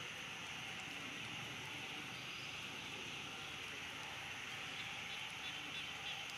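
Steady outdoor background hiss, with a few short high chirps near the end.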